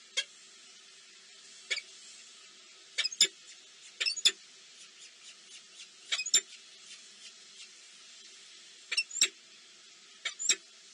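Small birds at a nest giving short, sharp, high-pitched chirps, singly and in quick pairs, about a dozen at irregular intervals, over a faint steady background hiss.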